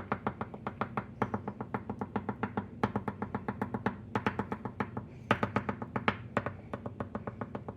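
Oil pastel stick tapped rapidly on paper to stipple dots: a quick run of light taps, roughly eight to ten a second, with a few brief pauses.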